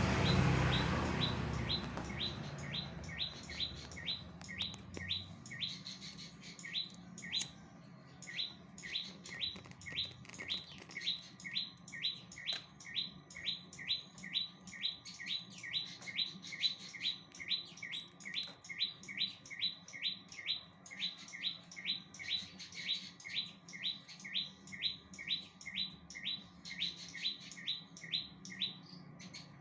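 A prinia (prenjak) calling in a long, steady series of short, sharp notes, each dropping in pitch, about two to three a second, with one brief pause. A low rumble at the very start fades within the first couple of seconds.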